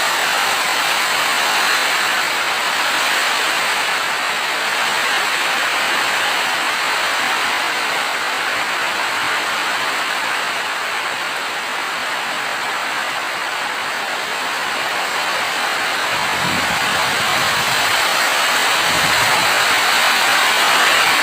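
Steady heavy rain, an even hiss, with a couple of brief low rumbles near the end.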